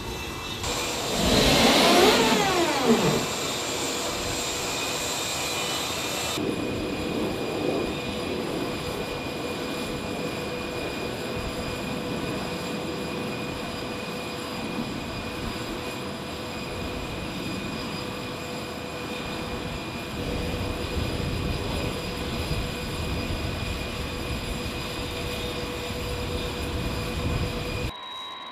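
Jet engines of an E-4B, a Boeing 747-based aircraft, running with a steady whine on the ramp, with a louder rushing surge and falling tones about two seconds in.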